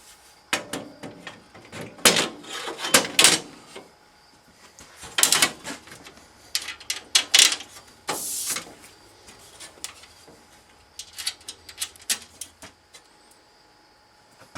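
Irregular clatter of metal parts and hardware being handled during machine assembly: clusters of knocks, clicks and short scrapes, easing off near the end.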